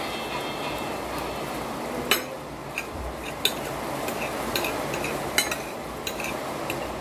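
Metal fork clinking and scraping against a ceramic plate of spaghetti: about half a dozen sharp clinks at irregular intervals, the loudest about two seconds in, over a steady background hiss.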